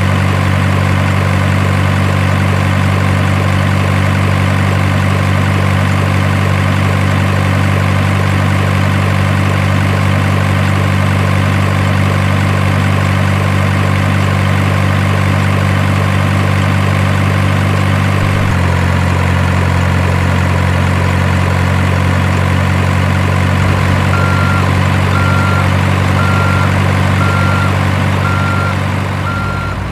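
Heavy truck engine sound idling steadily, a low even drone. About eighteen seconds in the engine note changes, and near the end a high beep repeats about once a second.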